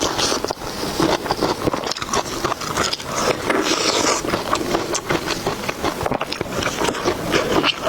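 Close-miked eating sounds of a person chewing and biting food: a dense run of rapid wet clicks and crackles, with no words.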